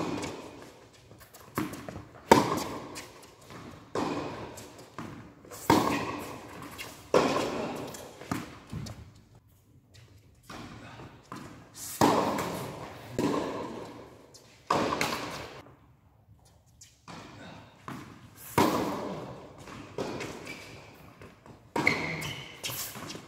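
Tennis rally on an indoor hard court: rackets striking the ball and the ball bouncing, a sharp hit every second or so, each ringing on in the echo of a large hall.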